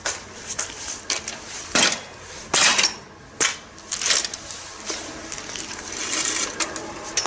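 Irregular clicks, clinks and short scraping rubs from hands working a road bike wheel and its clincher tyre during a tyre change, with the strongest rubs a little under two seconds in, around two and a half seconds in, and at three and a half seconds.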